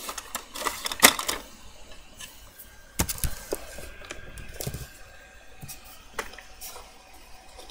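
Small plastic toys being handled, with scattered light clicks and knocks; the sharpest comes about a second in and another about three seconds in.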